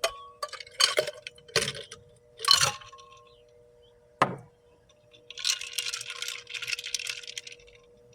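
Ice being dropped into a glass beaker to cool a hot aqua regia gold solution: several sharp clinks, some briefly ringing, then a longer clinking rattle.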